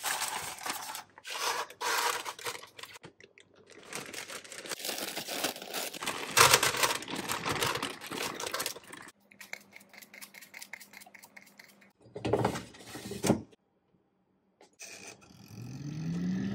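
Paper and plastic rustling as a paper liner goes into an air fryer basket, then crinkling of a snack bag and dry rustling as curly fries are shaken from it into the paper-lined basket. Near the end, a motor hum rises in pitch and levels off.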